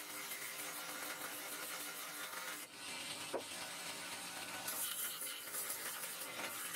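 Belt grinder running as a metal knife handle is sanded on its abrasive belt, a steady grinding hiss, with background music under it.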